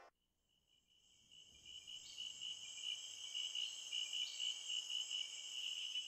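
Crickets chirping in a steady, pulsing high trill that fades in from silence over the first second or two.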